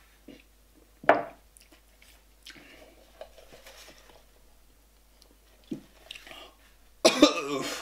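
A man inhaling sambuca vapours through a straw from an upturned snifter: a short sharp sound about a second in, faint breathy sucking, then a loud fit of coughing near the end as the anise fumes catch his throat.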